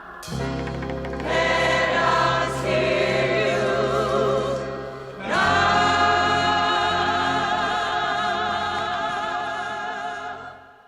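Choir singing a gospel-style passage with accompaniment, swelling about five seconds in to a long held final chord that fades away near the end.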